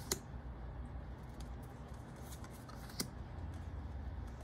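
Pokémon trading cards being handled one at a time: card stock sliding and flicking against the stack, with two sharp snaps, one right at the start and one about three seconds in, over a low steady hum.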